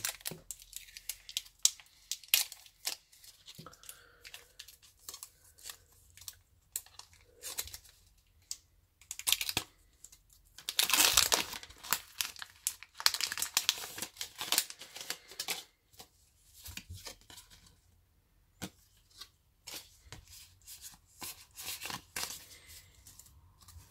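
A foil Pokémon trading card booster pack being crinkled and torn open, with the loudest stretches of tearing and rustling in the middle, then the cards inside being slid out and handled with light clicks and rustles.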